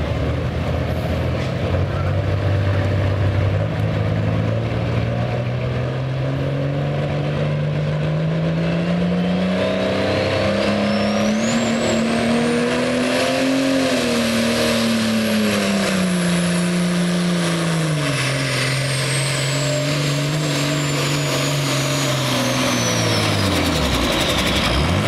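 Turbocharged diesel engine of a Light Pro pulling tractor revving up and pulling the sled under load. Its pitch climbs for about thirteen seconds and then sags as the load builds. A turbocharger whistle rises sharply to a high scream about ten seconds in, holds, then slowly falls, and near the end the engine drops off as the pull stops.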